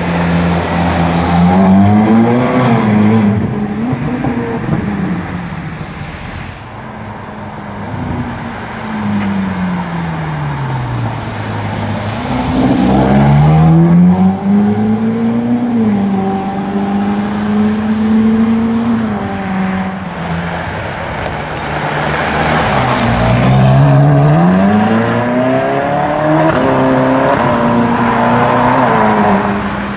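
Ferrari California's V8 accelerating and easing off several times, its engine note climbing in pitch, dropping back and climbing again.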